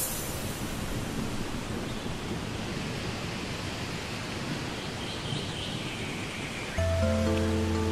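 Steady rushing noise wash in an edited soundtrack. About seven seconds in, music comes back with a held low bass note and sustained chords.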